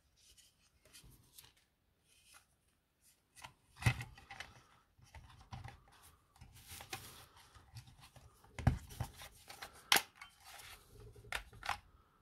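Plastic casing of a DeWalt 18V XR 4Ah battery pack being handled and fitted back together: rubbing and scraping with scattered clicks, and sharper knocks about four, nine and ten seconds in.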